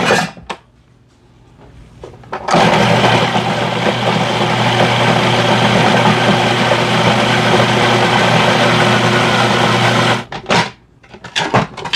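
Food processor motor running steadily, blending carrots, onions and celery with olive oil into a sofrito. It starts about two and a half seconds in and stops a little before the end.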